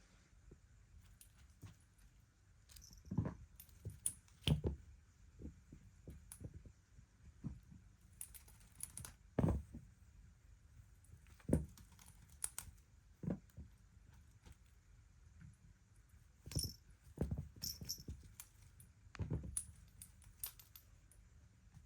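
Scattered light clicks, knocks and small rattles at irregular intervals, with a few brief, faint high squeaks, from kittens moving about in a small space.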